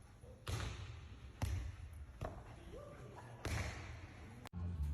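Four sudden thuds, roughly a second apart, like something bouncing or being struck. The sound cuts off suddenly near the end.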